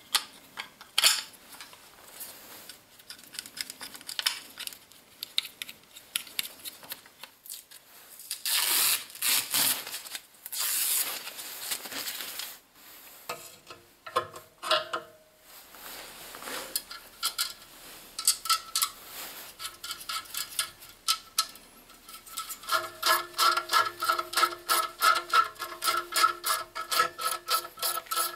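Steel bracket parts handled and scraped against each other, then, in the last quarter, a socket ratchet wrench clicking steadily, about three clicks a second, as a nut on the grinder's tool-rest bracket is tightened.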